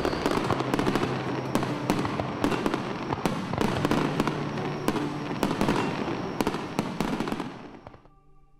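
Fireworks display: a dense run of sharp bangs and crackling that cuts off suddenly near the end, leaving only a few faint steady tones.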